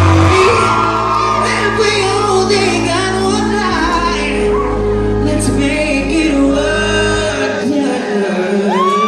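Live band music with singing, with the echo of a large hall. Sustained deep bass notes drop out about seven and a half seconds in.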